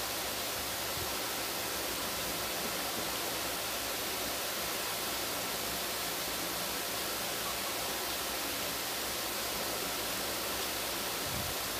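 A steady, even hiss of background noise with no change in level, and a few soft low bumps near the end.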